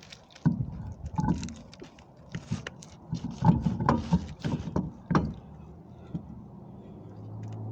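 A run of irregular knocks and clunks from things being handled and set down, then a low steady hum that comes in near the end.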